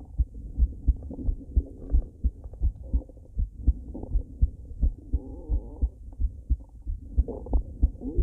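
A woman's heartbeat as a steady run of low double thumps, with irregular stomach gurgling rising over it about five seconds in and again near the end.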